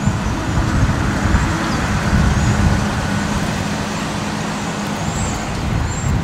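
Steady road-traffic rumble with tyre noise and a low hum, passing vehicles swelling and fading within it.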